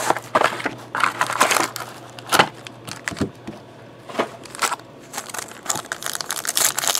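Plastic shrink-wrap and pack wrappers crinkling and rustling as a sealed trading-card box is unwrapped and its packs are handled, with a few sharp taps and knocks in between.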